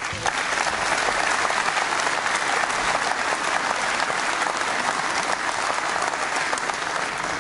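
Conference audience applauding, a steady dense clapping that starts suddenly and dies away near the end.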